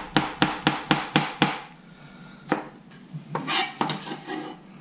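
Kitchen knife chopping a mushroom on a cutting board: a quick even run of chops, about four a second, for the first second and a half, then a few scattered knocks and a brief scrape.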